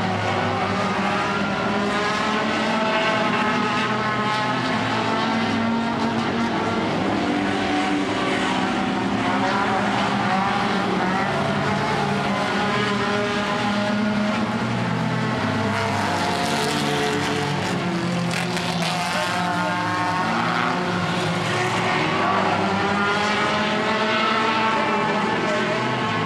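Several four-cylinder mini stock race cars' engines running together at racing speed, their pitches overlapping and rising and falling as the cars come off and back on the throttle through the turns.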